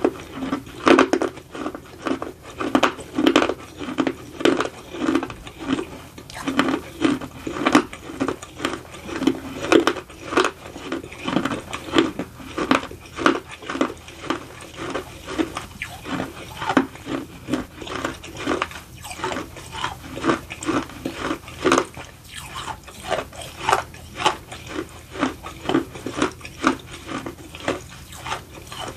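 Close-up chewing of baked edible clay: a dense, irregular run of crisp crunches.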